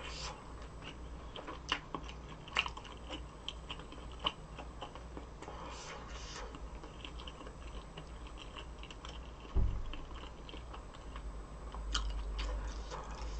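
Close-miked chewing: wet, sticky mouth clicks and smacks as food is chewed. About nine and a half seconds in there is one dull thump.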